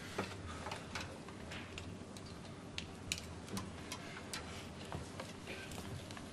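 Faint, irregular light clicks and taps of IV tubing and fittings being handled as a chemotherapy drip is connected to a patient.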